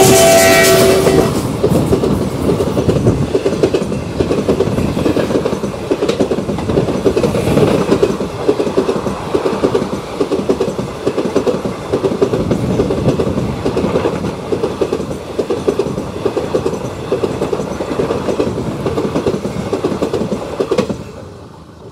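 Twin WDG-3A diesel locomotives hauling an express train past at speed, their horn ending about a second in. Then the passenger coaches' wheels run over the rail joints with a steady clickety-clack, until the last coach passes and the sound drops away near the end.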